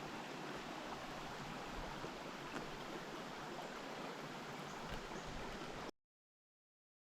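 Steady rush of creek water pouring over a waterfall, cutting off abruptly about six seconds in.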